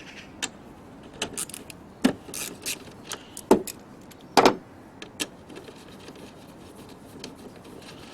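Sharp clicks and knocks of metal tools and parts being handled, in an irregular run over about five seconds. The loudest knocks come about two, three and a half, and four and a half seconds in, followed by a few faint ticks.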